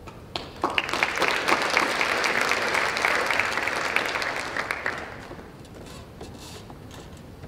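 An audience clapping, starting about half a second in and dying away after about five seconds.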